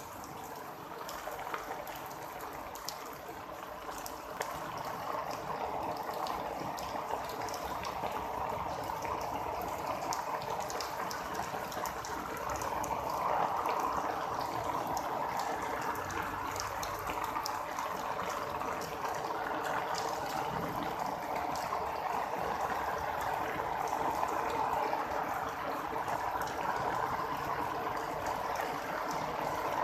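Steady rushing, bubbling water with scattered small clicks of droplets, growing a little louder over the first half.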